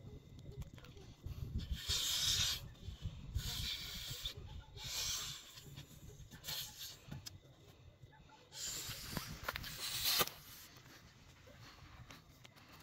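A person blowing breaths into the valve of an inflatable pillow: several hissing exhales, the longest near the end, with rustling handling of the plastic between them.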